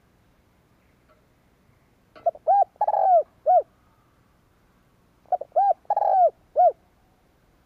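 Spotted dove cooing: two matching phrases about three seconds apart. Each is a quick run of four or five arched coos with a longer, rougher note before the last one.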